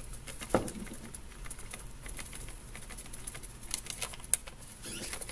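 Baking soda powder being shaken from a folded paper into a glass Ramune bottle: light, irregular ticks and paper rustling, with one sharper knock about half a second in.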